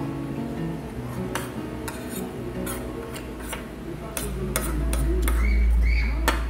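Metal fork clicking against a plate, a scattered series of sharp clinks, with a low rumble coming in about four seconds in.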